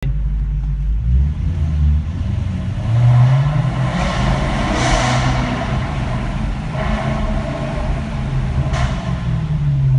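Maserati GranTurismo V8 running through a Larini X-pipe exhaust. Its revs rise about three seconds in, and a single sharp exhaust pop comes near the end.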